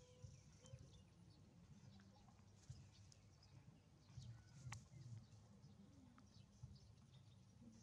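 Near silence: faint background with scattered small ticks and soft low thumps, one sharper tick near the middle.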